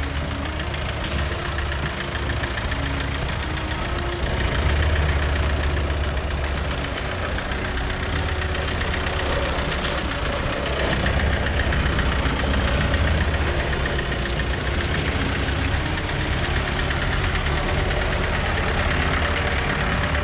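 Jeep Wrangler's swapped-in 2.0 TDI four-cylinder diesel running at low speed with a steady clatter as it crawls over a rocky, muddy trail. It grows louder as it comes up close.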